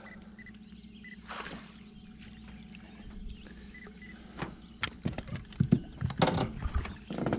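A low steady hum, then from about four and a half seconds in a run of sharp knocks and clatter from handling in a small fishing boat as a fish is reeled in.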